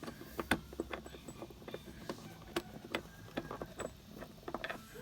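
Irregular clicks and taps of stiff plastic interior trim being worked loose by hand, about a dozen sharp little knocks at uneven spacing.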